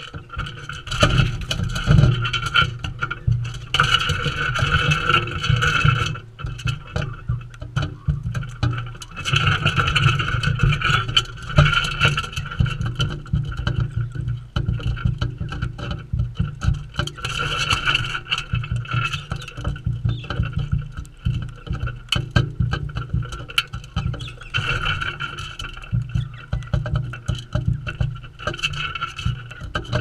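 Galahs feeding right at the microphone: dense tapping, scraping and crunching of beaks on seed and the feeding ledge, with low bumps and rumble as the birds jostle close. A steady high tone comes and goes in stretches of a second or two.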